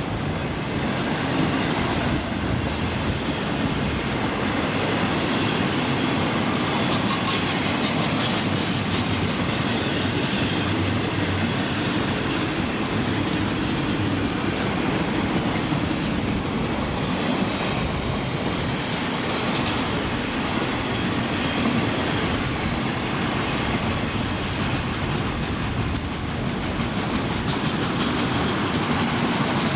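Intermodal freight train's cars, flatcars carrying truck trailers and containers, rolling past in a steady run of wheel-on-rail noise with occasional clicks from the wheels.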